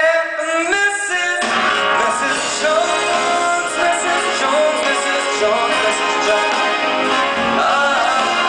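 Live big band music: a long held high note, then about a second and a half in the full band comes in with drums, bass and horns and plays on.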